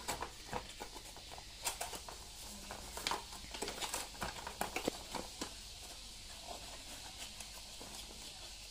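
A cardboard product box being opened by hand and the light fitting slid out of it. There are scattered rustles, scrapes and taps of the flap and packing for about the first five seconds, then quieter handling.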